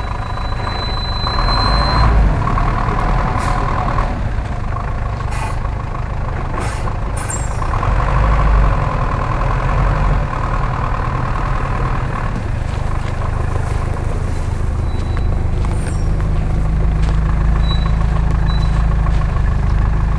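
Engines of an off-road truck and a Toyota 4Runner running as they crawl along a dirt track, a deep steady engine note that swells about eight seconds in and again near the end, with a few brief clicks.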